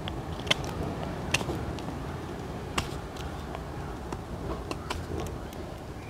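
Victorinox Hunter Pro folding knife blade cutting shavings off the pointed end of a seasoned wooden stick: a scattering of sharp, crisp cuts, the loudest about half a second, a second and a half and nearly three seconds in, over a steady low background rumble.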